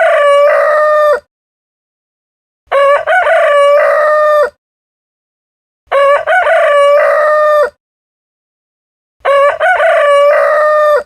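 A rooster crowing four times at even intervals, about every three seconds, with silence between crows; the first crow is already under way as the sound begins. Each crow is a cock-a-doodle-doo of quick opening notes ending in a long held note.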